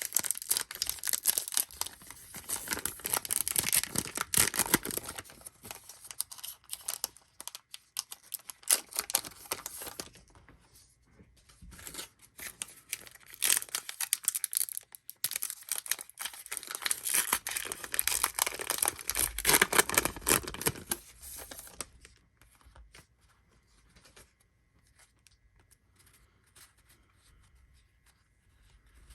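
Trading-card pack wrappers being torn open and crinkled, in two long stretches of crackling. After that there is only faint handling of the cards.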